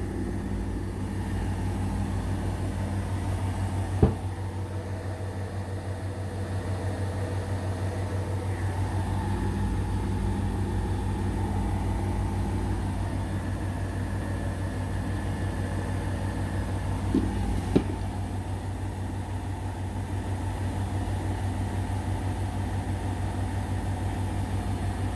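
Indesit BWE101683 washing machine spinning its drum with a slightly unbalanced load, building up speed toward 800 rpm, with a steady hum that pulses with each turn. Two sharp knocks come through, one about four seconds in and another near eighteen seconds.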